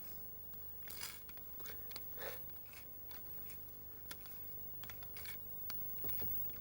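Faint scattered clicks and short rustles of a kaleidoscope being handled and turned, over a faint steady hum.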